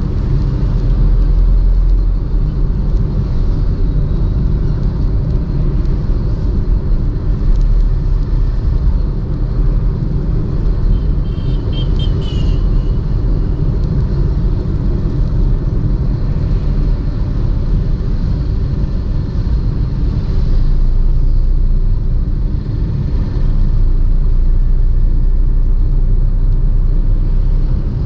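Steady low rumble of a car driving along a highway: engine and tyre road noise, heard from inside the car. About twelve seconds in there is a brief high-pitched sound over the rumble.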